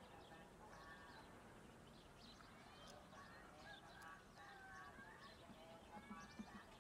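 Near silence: faint outdoor ambience with faint, distant wavering calls and short chirps.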